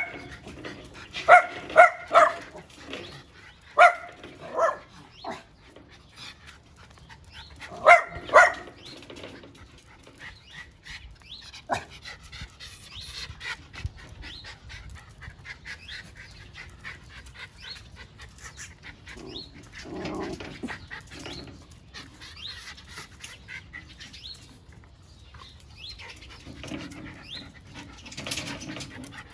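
Miniature schnauzer barking: about seven short, high barks in groups of two and three over the first nine seconds, then only faint small sounds.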